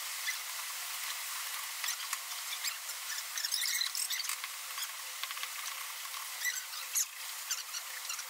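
A hand tool scraping and scratching along the slot edges of a formica-laminated plyboard shelf panel, in short uneven bursts over a steady hiss.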